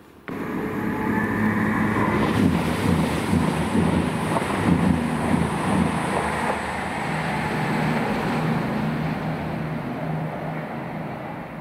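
Diesel passenger train passing at speed close by, its engines droning under a loud rush of wheel and air noise that eases off slowly as it draws away.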